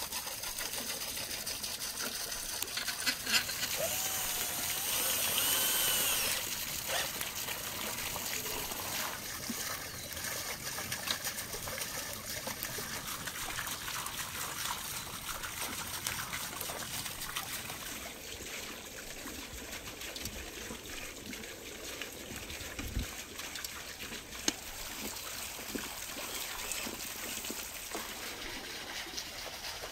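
Water running and trickling steadily, from the stream that pours through the chute and turns a small wooden watermill.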